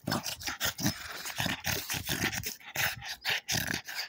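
Small black dog making short play growls and huffs close up, several a second in quick, irregular succession.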